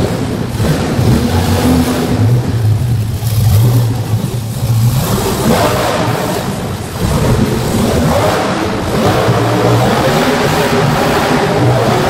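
Monster truck engines revving hard and easing off in waves inside an arena. Several trucks are running at once in the second half.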